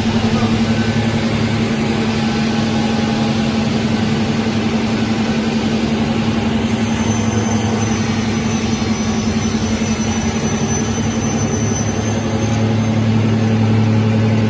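Sliding table panel saw running, its motor and blade giving a steady hum, growing slightly louder near the end.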